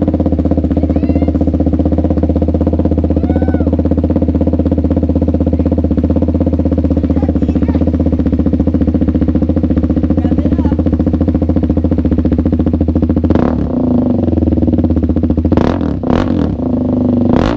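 KTM Duke 390's single-cylinder engine running through a new custom racing exhaust, idling loud and steady with a fast, even pulse. Near the end it is briefly blipped a few times.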